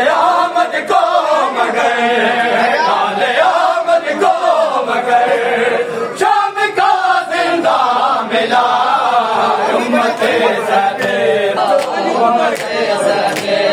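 A crowd of men chanting a Muharram noha (lament) together while beating their chests in matam.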